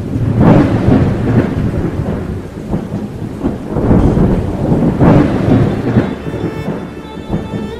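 Thunderstorm: rolling thunder over steady rain, swelling to loud peaks about half a second in and again about five seconds in, then easing off near the end.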